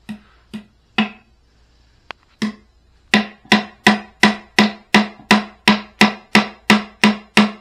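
Hammer driving small one-inch nails into a thin wooden board: a few scattered taps, then from about three seconds in a steady run of strikes, nearly three a second, each ringing briefly.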